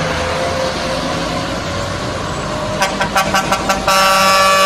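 Heavy trucks running, then a truck horn gives about six quick toots about three seconds in, followed by one long held blast near the end.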